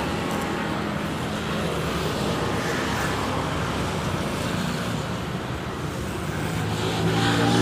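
Electric hair clipper buzzing steadily as it cuts a man's hair, over an even background noise.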